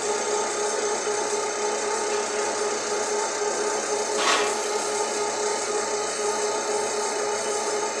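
Wheel lathe cutting the face of an alloy rim for a diamond-cut finish: a steady machine whine under a hissing, rasping cut, with a brief louder scrape about four seconds in.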